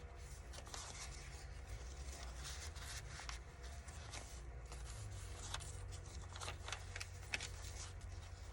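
Paper pages, tags and card in a handmade junk journal rustling, sliding and scraping as they are turned and handled: many short scratchy rustles over a faint low hum.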